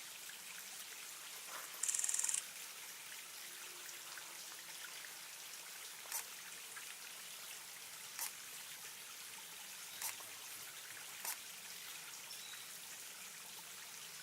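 Water trickling steadily into a small bird bath. About two seconds in comes one short, loud, high rapid bird call, and later there are four sharp ticks about two seconds apart.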